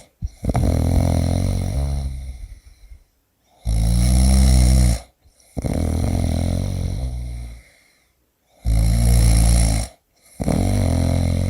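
Snoring in a slow, even rhythm: each louder, rasping snore is followed by a softer one that fades out, with brief silences between, one cycle about every five seconds.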